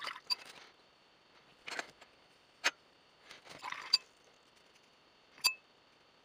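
Handling noises from the painting desk: several short rustles of the sheet of watercolour paper being shifted and held down, with a few sharp, separate clicks or taps in between.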